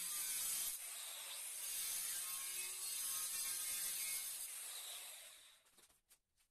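Handheld Makita marble saw with a diamond disc cutting straight through a ceramic wall tile: a steady, high-pitched cutting noise that dies away and stops about five to six seconds in as the cut ends.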